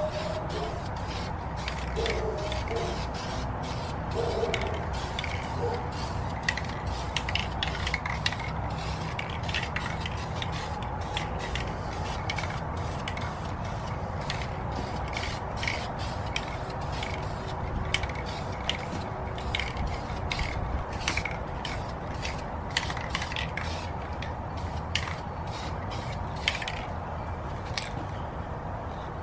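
Aerosol can of primer spraying a light coat in many short, irregular bursts, each a brief hiss over a steady background hiss.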